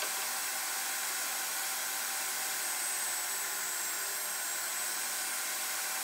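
DeWalt DWE7492 table saw running with its shop-vac dust extraction: a steady hiss with a thin high whine. It fades away at the very end.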